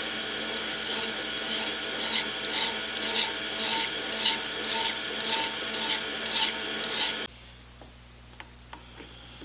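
Hand file scraping across the crests of freshly cut threads on a part spinning in a metal lathe, about two strokes a second over the lathe's steady running tone. It takes the peaks off threads that fit too snug. The lathe stops about seven seconds in.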